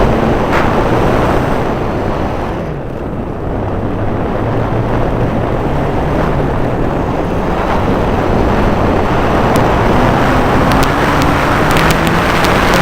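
Radio-controlled model airplane's engine running with a low drone that shifts in pitch and climbs near the end, mixed with heavy wind noise on the microphone.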